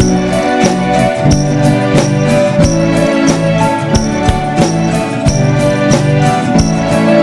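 Instrumental band music with a steady beat and sustained chords, without singing.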